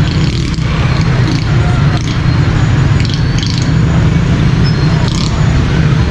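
Busy street traffic noise: a loud, steady low rumble of passing vehicles and auto-rickshaw engines, with a few faint clicks and knocks.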